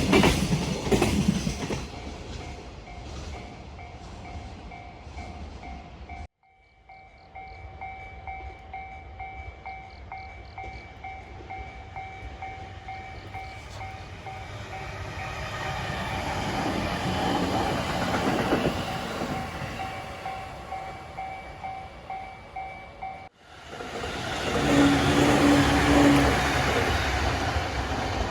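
Japanese freight trains at a level crossing. The wheels clatter over the rail joints as a train passes, then the crossing's warning bell rings steadily while the rumble of the next train builds. After that a train goes by loudly, with a short horn blast partway through.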